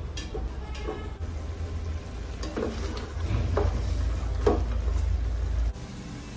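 Goat trotters and masala sizzling as they fry in oil in an open pressure cooker on a high gas flame, stirred with a ladle that scrapes and knocks against the pot several times. Near the end it drops to a quieter steady hiss.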